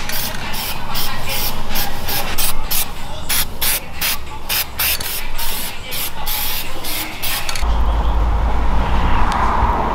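Compressed air hissing in short, rapid bursts, about three a second, from a pneumatic shop tool. About seven and a half seconds in the bursts stop and a deep low rumble takes over.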